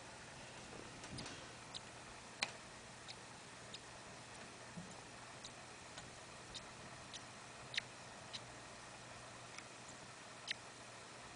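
A small pet sneezing again and again: over a dozen tiny, sharp, high sneezes, irregularly spaced about half a second to a second apart.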